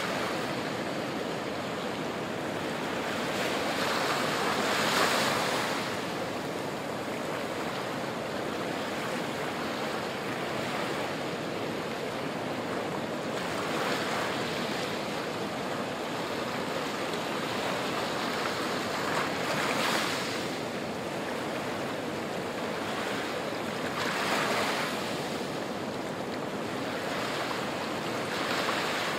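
Small waves breaking and washing up a sandy, rocky shore: a steady wash of surf with a louder surge every several seconds, five in all.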